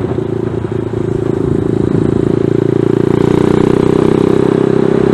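Zongshen ZS190 single-cylinder four-stroke engine of a Grom-clone motorcycle running under way, getting a little louder over the first few seconds and then holding steady. Wind noise on the microphone lies under the engine.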